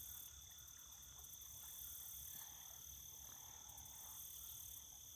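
A faint chorus of calling insects: steady high trills with a pulsing shimmer above them.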